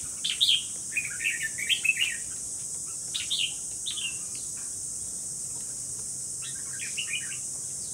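Caged red-whiskered bulbul singing short, quick warbling phrases in three bursts, over a steady high drone of insects.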